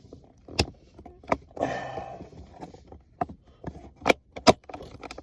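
Plastic shifter trim in a car's centre console being handled and pressed back into place: a string of sharp clicks and taps with a short rustle.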